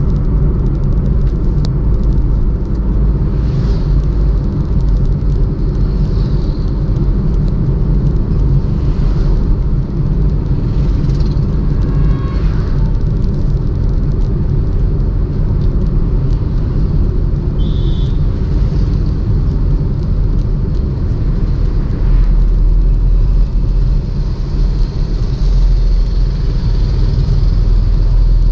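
Steady low rumble of road and engine noise from a moving car.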